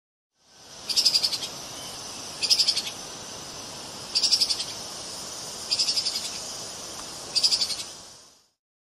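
Treeshrew calling: five short, high-pitched chattering trills, each a quick string of pulses about half a second long, spaced about a second and a half apart over a steady background hiss.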